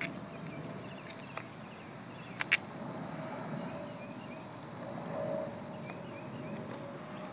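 Triumph parallel-twin motorcycle engine idling steadily through a single carburettor on an aluminium intake manifold, with a couple of sharp clicks about two and a half seconds in.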